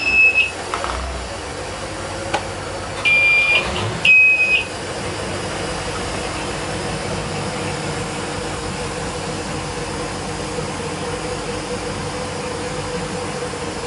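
Helm warning buzzer beeping three times in the first few seconds as the twin freshly overhauled MerCruiser 454 (7.4 L) MPI Horizon V8s are started. The engines then settle into a steady idle, about 800 rpm.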